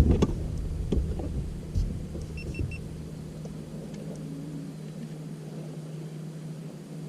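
A steady low motor hum runs throughout, with low rumble and a few light knocks in the first three seconds. Three short high beeps come about two and a half seconds in.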